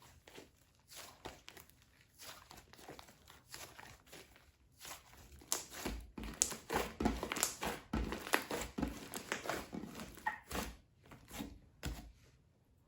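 Hands squishing, stretching and folding slime. It makes irregular sticky crackles and small pops, which grow louder and busier about halfway through, then stop just before the end.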